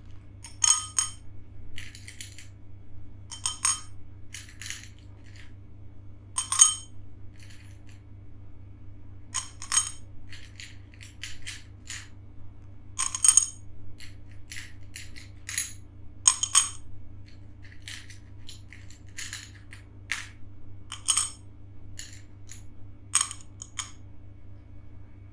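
Glass pebbles dropped one at a time into a stemmed wine glass, each landing with a sharp glassy clink that rings briefly; more than a dozen clinks at irregular intervals.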